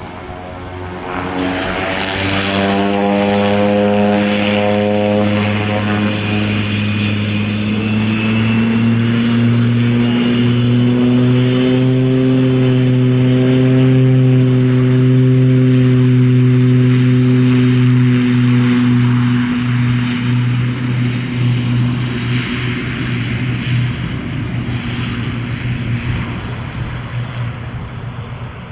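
Cessna 208 Caravan's Pratt & Whitney PT6A turboprop running as the aircraft taxis past on grass: a deep propeller drone with a high turbine whine over it. It swells to its loudest midway as the plane goes by, then fades as it moves away.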